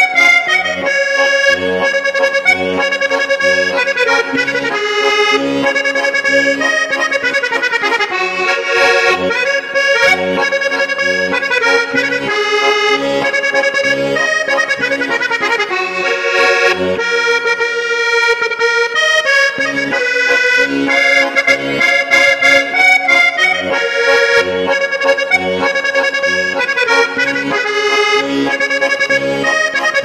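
Dino Baffetti button accordion playing a waltz: a melody on the right-hand buttons over a steady, evenly repeating bass-and-chord accompaniment.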